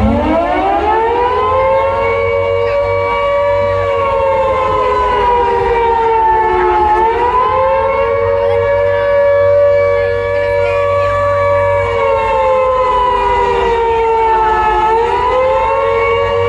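Civil-defence air-raid siren winding up steeply from a low pitch, then wailing at a high held pitch that sags and climbs back up twice, about seven and fifteen seconds in.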